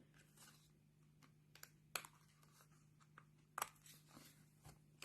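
Near silence: a faint steady hum with a few light taps and rustles of paper cut-outs being handled and laid on a card, about four over the span.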